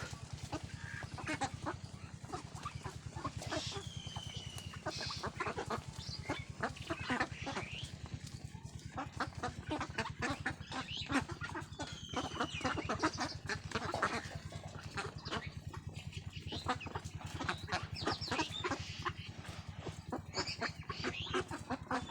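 A flock of Khaki Campbell ducks calling in a dense, continuous chatter of short calls over a steady low hum. A high, falling whistled call cuts through now and then.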